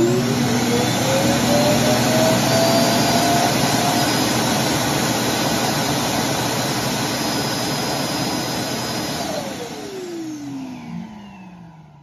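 iRobot Clean Base automatic dirt-disposal station sucking the dust out of a docked Roomba i7+'s bin: a loud rushing suction with a motor whine that rises as it spins up at the start, then falls as the motor winds down and the sound fades out near the end.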